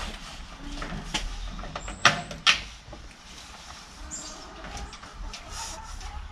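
Two loud, sharp knocks about two seconds in, half a second apart, among lighter clatter and knocking, over a low steady rumble.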